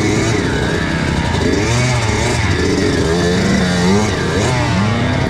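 Kawasaki KX85 two-stroke dirt bike engine revving unevenly, its pitch rising and falling again several times as the throttle is opened and closed.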